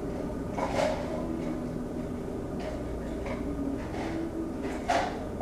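Household handling noises: objects being moved and knocked, with two louder knocks about a second in and near the end, over a low steady hum.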